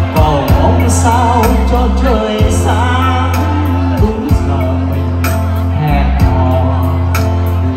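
A man singing a Vietnamese ballad into a microphone over electronic keyboard accompaniment with a steady programmed drum beat and bass, played through a PA system.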